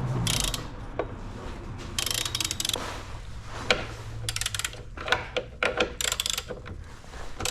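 Ratchet wrench clicking in short bursts of quick strokes as a bolt is turned in.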